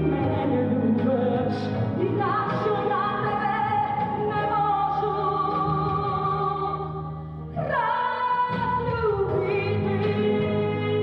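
Closing bars of a slow pop ballad: long held melody notes, sliding up about two seconds in and down again near the end, over a steady accompaniment.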